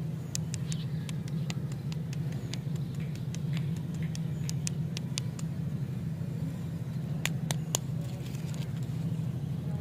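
Small sharp clicks and light crinkles from fingers handling wrapped lollipops and their plastic wrappers, over a steady low hum. Three louder clicks come close together near the end.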